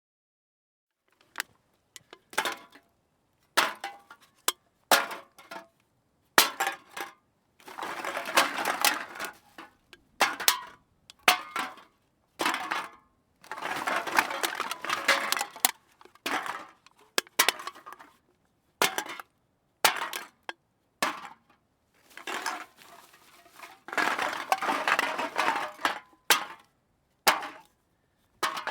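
Metal cans being handled and set down one by one, giving sharp separate clinks and clanks with silence between them. Three times the clinks run together into a longer stretch of cans rattling and knocking against each other.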